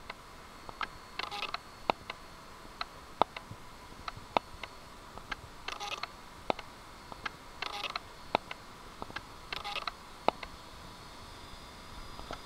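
Camera shutters clicking irregularly from a crowd of trackside photographers. Several short rapid-fire bursts, like a camera firing a few frames at a time, come every couple of seconds among single sharp clicks.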